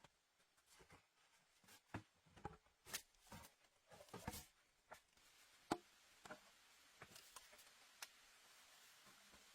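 Faint, irregular taps and knocks of hand work, one sharper click a little past halfway, over a faint steady hiss that comes in about halfway through.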